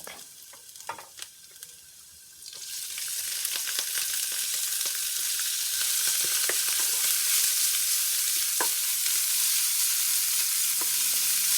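Garlic and minced pork frying in hot oil in a pan and being stirred. The sizzle swells loudly about two and a half seconds in and then holds steady, with scattered clicks from the stirring.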